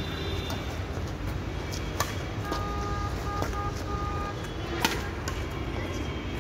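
Badminton rally: a few sharp racket strikes on the shuttlecock, the loudest about five seconds in, over a steady low rumble of outdoor background noise. A faint held tone sounds in the middle.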